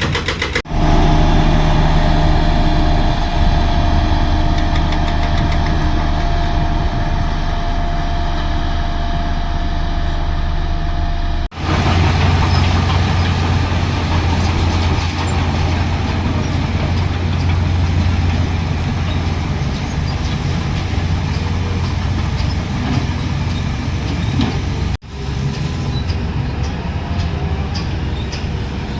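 Heavy construction machinery's diesel engines running with a steady low drone, breaking off abruptly three times: about a second in, about a third of the way through and near the end. A steady whine runs over the engine in the first part.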